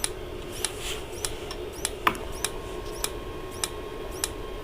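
Dometic Americana RV refrigerator's spark igniter snapping at an even pace, a little under two clicks a second, with one sharper snap about two seconds in, over a steady low hum. It is trying to light the propane burner on gas mode without catching, which the owner puts down to the gas solenoid not getting the signal to open.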